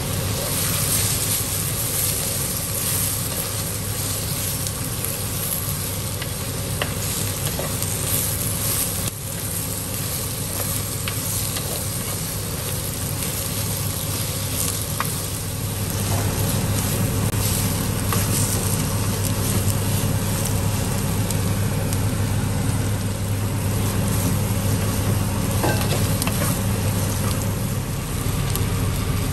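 Sliced onions, curry leaves and chillies sizzling in oil in a clay pot while a spatula stirs them, with a steady low hum underneath.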